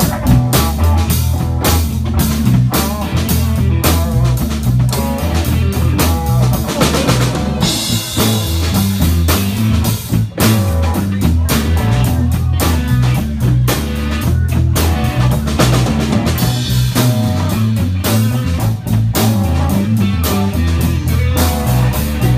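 Live band playing an instrumental passage: drum kit beating steadily over a low bass line, with guitar, and cymbals washing in louder for a few seconds around the middle.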